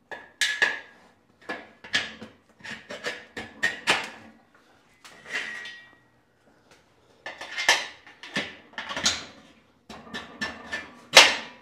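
Irregular metal clanks and knocks, some with a brief ringing, from steel power-rack hardware (pins and safeties) being handled and dropped into place while a reverse hyper is set up in the rack.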